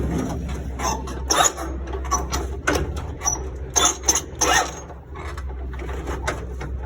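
Hand truck and oil tank knocking and scraping on a truck's metal lift gate, several short clanks over the first four or five seconds, over a steady low hum.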